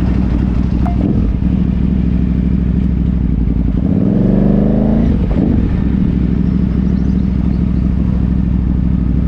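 KTM 990's V-twin engine running under way. About four seconds in the revs rise, then fall back a second later.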